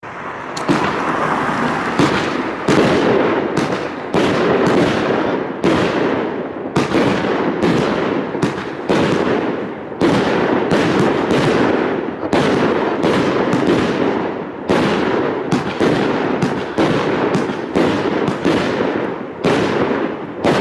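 A 25-shot fan-firing consumer firework battery going off: sharp bangs of shots launching and bursting in quick succession, about one a second, over a continuous hiss and crackle. It starts suddenly and keeps firing without a break.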